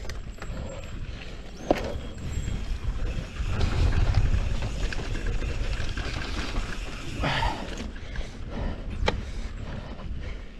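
Wind buffeting the camera microphone and knobby tyres rolling over dirt as a Canyon Strive enduro mountain bike descends a trail, the rumble swelling around four seconds in. Sharp clicks and knocks from the bike rattling over bumps, about two seconds in and again near nine seconds.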